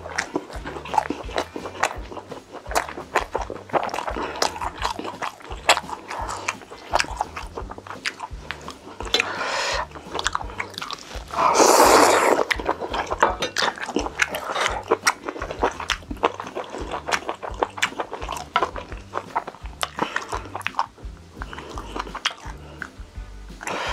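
Close-miked eating: chewing and biting with many small mouth and food clicks, over background music with a low bass line. About halfway through, a louder rushing sound lasts about a second.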